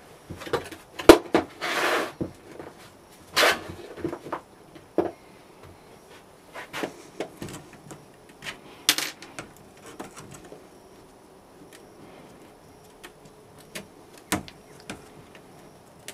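Irregular knocks, scrapes and short rustling bursts from handling a metal casting flask and casting sand on a metal tray, busiest in the first few seconds, with a sharp knock near the end.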